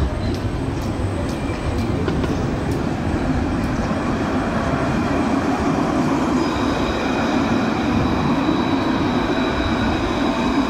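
Alstom Citadis low-floor tram passing close by on its rails, a steady rumble and hiss; a thin high whine joins about six seconds in.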